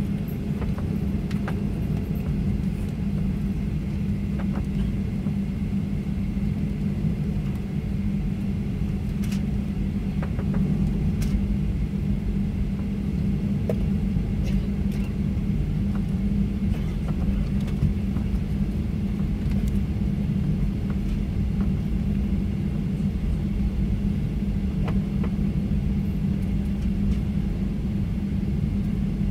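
Steady cabin rumble inside a Boeing 737-900 taxiing, with a constant low hum from its CFM56-7B engines and airframe, and a few faint clicks.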